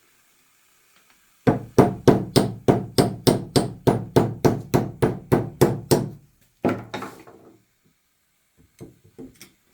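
Hammer blows on an excavator part: a run of about fifteen quick, even strikes at roughly three a second, each ringing briefly. One more blow follows after a short pause, then a few light taps near the end.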